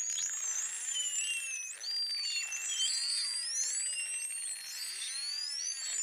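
Pod of false killer whales calling underwater while feeding on a kill: many overlapping whistles, sweeping up and down in pitch, with some lower curved calls and buzzy pulsed sounds among them.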